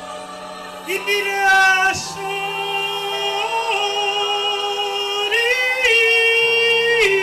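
A woman's voice singing long, held wordless notes in worship, starting about a second in and sliding up and down between pitches, over sustained low accompanying chords.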